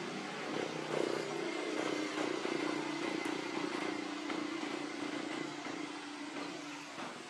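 An engine drone, steady, its pitch sinking slightly as it fades near the end.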